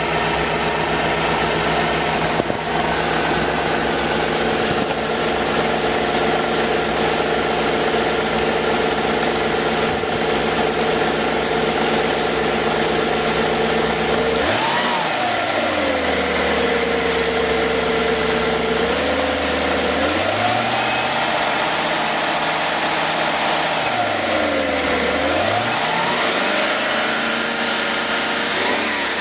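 Audi A8 3.7 V8 engine running: a steady idle for about the first half, then revved several times, the pitch rising and falling. This is while the LPG conversion is taking over from petrol.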